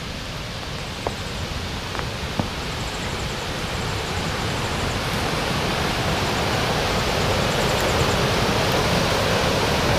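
Rushing mountain creek over rocks, a steady wash of water noise that grows louder as the trail nears the bank. A few light clicks sound in the first couple of seconds.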